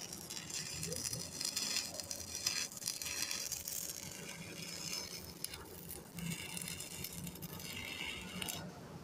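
Electric arc welding: an irregular crackling, sizzling arc that breaks off briefly a few times and stops near the end.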